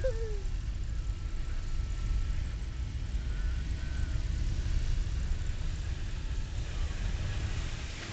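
Car driving on a snowy road, heard from inside the cabin: a steady low rumble of engine and tyre noise.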